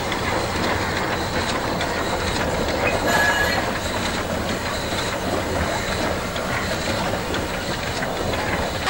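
Narrow-gauge steam locomotive No. 679, built in 1908, rolling past close by: a steady rumble and rattle of wheels and running gear on the track, with a brief squeal about three seconds in.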